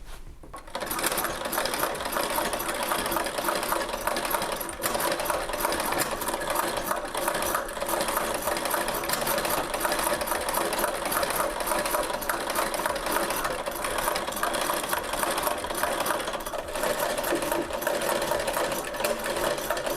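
Vintage Singer 128K vibrating-shuttle sewing machine, driven by treadle, stitching steadily: a fast, even clatter of needle and shuttle that starts about a second in.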